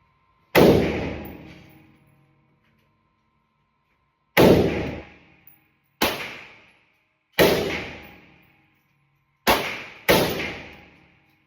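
Six single shots from a 5.56 AR pistol, each a sharp crack trailing off in a long echo, fired at an uneven pace with the last two about half a second apart.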